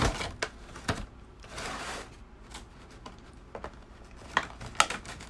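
Clear plastic blister packaging being pulled from a cardboard box and handled: scattered sharp clicks and crinkles, with a short rustle about a second and a half in.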